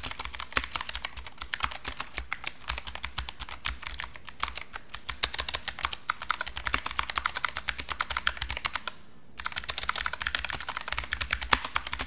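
Fast typing on an ASUS TUF Gaming K3 mechanical keyboard with blue switches: a dense run of sharp, clicky keystrokes, broken by one short pause about nine seconds in.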